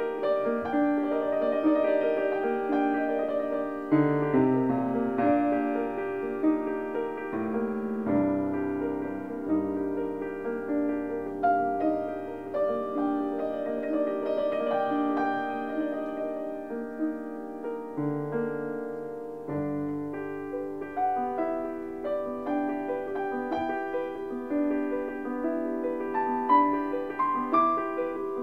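Gentle solo piano music, with bass notes coming in every few seconds under a slow melody.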